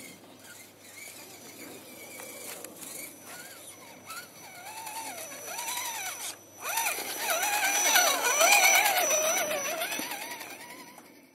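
Electric motor and drivetrain of a scale RC crawler truck whining, the pitch rising and falling quickly as the throttle is worked over roots and grass. It grows louder toward the end, loudest about eight seconds in, after a short break about six and a half seconds in.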